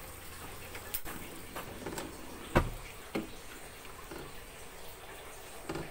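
A plastic ladle stirring soup in an aluminium pot: a few scattered light knocks and clicks, with one louder dull thump about two and a half seconds in.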